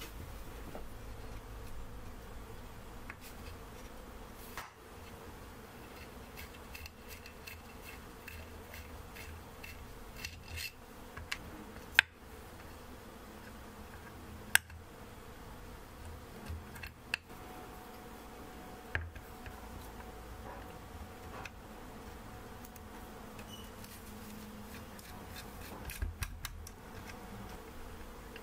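Small brass and steel parts of a model walking-beam steam engine clicking and tapping against each other and hand tools as it is taken apart by hand, with a few sharp clicks standing out, over a steady low hum.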